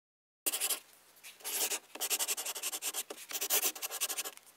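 Pen nib scratching across paper in a run of short writing strokes, in several bursts with brief pauses, starting about half a second in.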